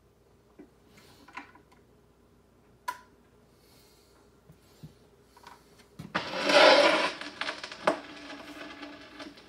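A few small clicks in a quiet room, then, about six seconds in, a loud rubbing scrape and continued rustling: handling noise as a basketball is brought up against the phone.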